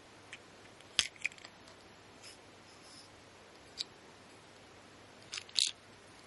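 Plastic parts of a Kitan Club giant isopod capsule-toy case clicking as it is opened and handled: a sharp click about a second in with a lighter one just after, a single click near four seconds, and a louder cluster of clicks near the end.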